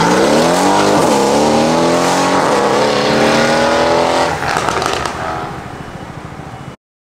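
Mercedes-AMG C63 S's 4.0-litre twin-turbo V8, breathing through a Fi Exhaust valvetronic catback with catless downpipes, accelerating hard away with revs climbing through two quick upshifts about one and two and a half seconds in. The engine note then fades into the distance and cuts off suddenly near the end.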